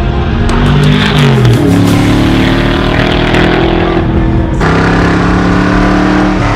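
Shelby Cobra 427's big-block V8 running hard under acceleration. Its pitch drops at a gear change about a second and a half in, then holds steady.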